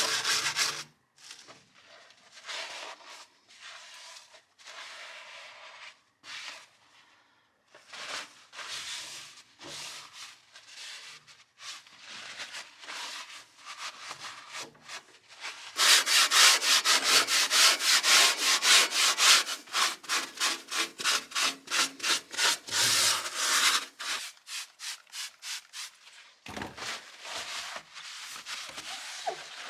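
Scrubbing: back-and-forth rubbing strokes on a hard surface. They are sparse and soft at first. About halfway in they become a fast, loud run at about four strokes a second for several seconds, then go softer again.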